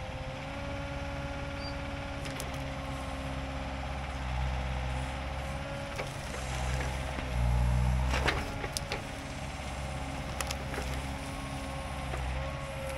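Compact excavator's diesel engine running with a steady high whine over it, working harder twice as the ripper tooth tears at small stumps and saplings. A few sharp cracks about eight seconds in, and once more later, as wood snaps.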